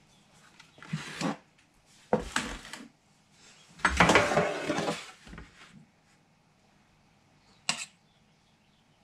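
A metal baking tray is handled on a table: clattering and scraping in several bouts, loudest about four seconds in. Near the end comes a short clink of a spoon in a stainless steel bowl.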